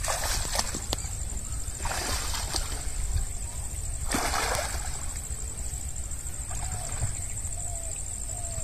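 Shallow canal water splashing and sloshing in three short bursts about two seconds apart as a person wades in among water lilies and aquatic weeds to pick the lilies.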